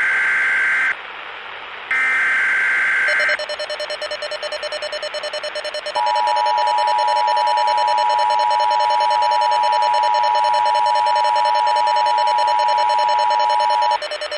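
Emergency Alert System signal: the tail of one screeching SAME data-header burst and then one more, about a second and a half long, followed by a pulsing buzz. About six seconds in, the steady two-tone EAS attention signal starts and holds for about eight seconds before cutting off, announcing the alert message that follows.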